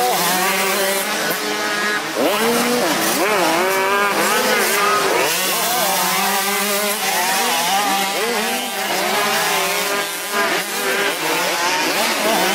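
Several motocross bikes' engines revving as they ride a dirt track, the pitch of the overlapping engines repeatedly rising and falling.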